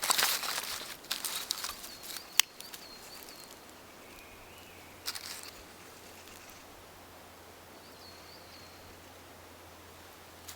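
Rustling and crackling handling noises in bursts, with one sharp snap about two and a half seconds in, and small birds chirping in the background.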